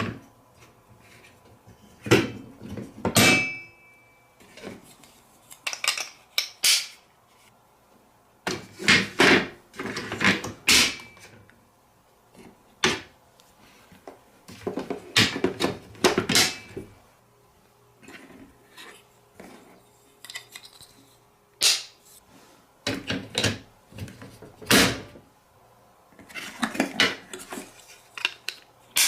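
Marbles rolling and clacking down a wooden HABA marble run, in irregular bursts of clattering clicks and knocks with short quiet gaps between runs.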